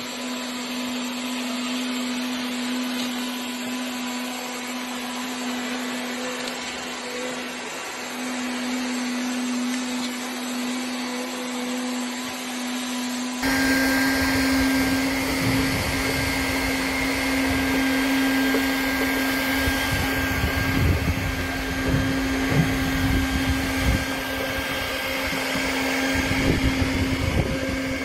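Automatic hot-air plastic welding machine running: the hot-air gun's blower gives a steady blowing noise with a steady hum. About halfway through the sound changes abruptly, becoming louder with a low rumble and irregular knocks.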